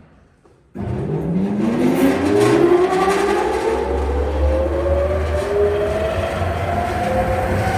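Tywent WTK 15 kW sawdust extraction fan switched on about a second in. Its motor and impeller spin up with a slowly rising whine over a low rumble of moving air.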